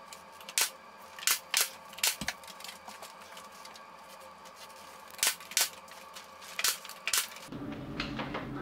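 Pneumatic nail gun firing nails into a wooden door frame: about eight sharp shots in two clusters, with a pause between them. A steady low hum comes in near the end.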